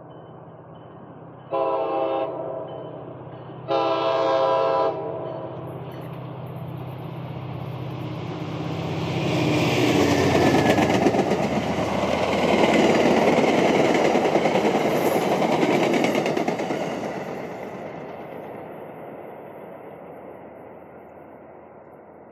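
MBTA commuter rail train sounding its horn twice, a short blast then a longer one, within the first five seconds. The train then passes at speed with the rumble of its bi-level coaches, which builds, is loudest from about ten to sixteen seconds in, and fades away.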